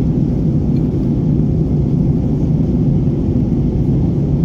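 Steady low rumble of jet airliner cabin noise in flight, engines and airflow heard from a window seat of an Airbus A320-family jet.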